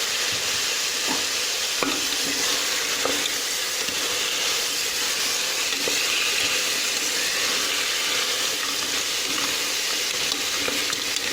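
Sea crab pieces sizzling steadily as they sauté in hot sesame oil with onion-tomato masala, with a few light knocks in the first few seconds.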